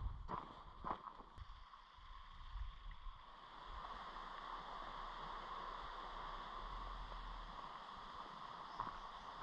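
Footsteps crunching on a stony track for the first second or so, then a steady rush of a woodland stream, with one faint step near the end.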